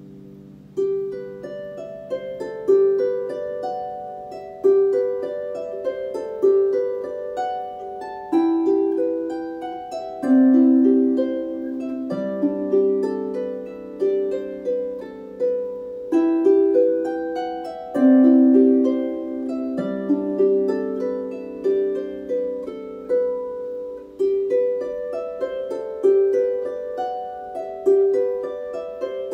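Solo Dusty Strings FH36S lever harp playing a slow, gentle tune. Each plucked note is left to ring, with a melody over rolling broken chords. A low chord fades out at the start, and the plucking picks up about a second in.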